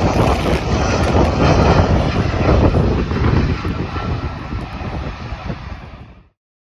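Airbus A320 jet engines on landing approach: a loud, steady rumble that fades as the airliner moves away toward the runway, then cuts off suddenly about six seconds in.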